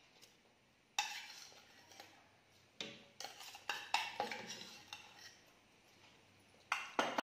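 A steel spoon clinking and scraping against a small stainless steel container as powdered biscuit is spooned out, in a series of sharp, separate clinks with quiet gaps between them.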